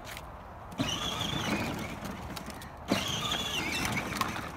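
Jeep Wrangler ride-on toy car's electric drive whining, with its plastic wheels rolling on asphalt. The drive cuts in abruptly about a second in and again near three seconds, as the foot pedal is let up and pressed down again.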